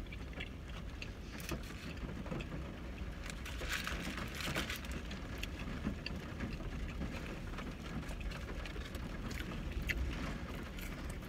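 Close-up chewing of a mouthful of Whopper burger, with irregular soft wet crackles and clicks, over a steady low rumble of the car's interior.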